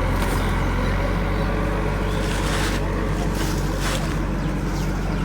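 Heavy diesel engine running steadily, with a couple of brief rushing noises near the middle.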